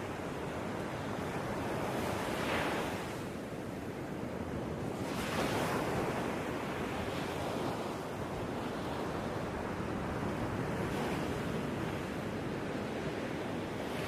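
Ocean waves: a steady rushing wash that swells and falls back several times.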